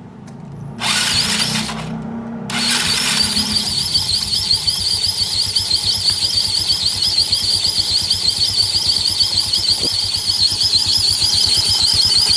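A Yamaha Mio scooter engine is started and catches about two and a half seconds in. It then runs with a loud, wavering high-pitched squeal from rubbing inside the CVT, which the mechanic places clearly at the rear end of the CVT.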